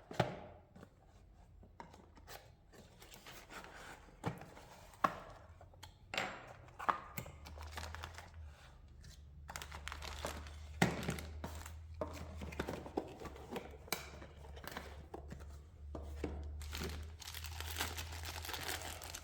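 Cardboard box and packaging being opened by hand: tearing, paper and plastic crinkling, and scattered knocks and scrapes, with a faint low hum from about seven seconds in.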